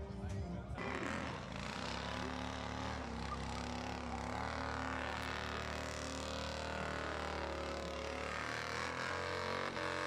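A large touring motorcycle's engine held at high revs in a burnout, with the rear tyre spinning and squealing on the pavement; it comes in about a second in and holds steady.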